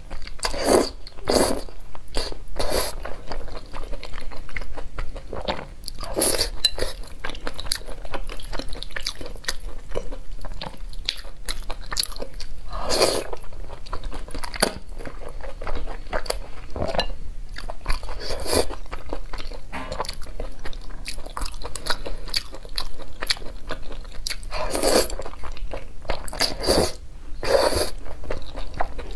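A person eating noodles in a thick sauce close to the microphone: loud slurps every few seconds between wet chewing and mouth noises.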